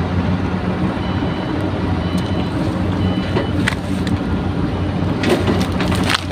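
A motor running at a steady, even drone. Three short, high peeps sound in the first few seconds, and a few sharp clicks and rustles come near the end.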